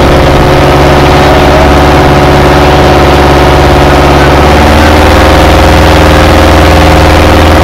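Fishing boat's engine running steadily, heard from on board; its note shifts about halfway through.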